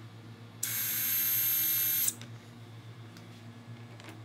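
Battery-powered surgical drill running in one burst of about a second and a half, a high-pitched whine with hiss that cuts off suddenly, as it drives a threaded pin through the femoral cutting block into the plastic sawbone femur.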